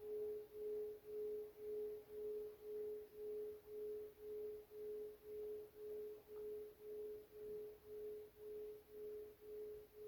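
A bell's long ringing tone, faint and slowly dying away, swelling and ebbing evenly about twice a second.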